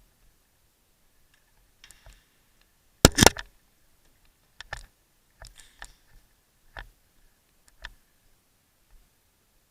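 Airsoft guns firing: a quick burst of several sharp snapping shots about three seconds in, the loudest sound, then scattered single shots at irregular gaps.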